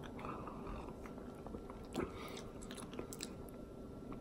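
Faint mouth sounds of a person sipping makgeolli (Korean rice wine) from a bowl and swallowing, with small lip and tongue clicks as he tastes it, and one slightly louder mouth sound about two seconds in.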